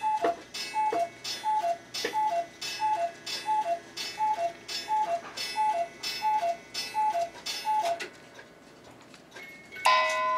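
Cuckoo clock striking the hour: the bellows-blown pipes sound a steady run of two-note cuckoo calls, high then low, with a mechanical click at each, stopping about eight seconds in. Near the end a bell-like chiming tune begins.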